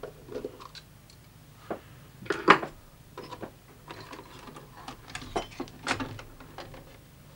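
Scattered clicks and knocks of a VHS recorder's metal chassis and underside circuit board being handled and lifted away to reach the mechanism, with one sharper knock about two and a half seconds in.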